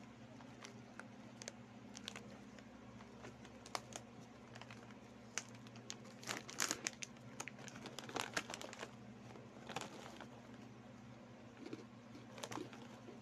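Plastic snack bag of Chick Boy corn snack crinkling as it is handled and torn open at the top. The crackling is sparse at first and thickest from about six to ten seconds in, over a faint steady low hum.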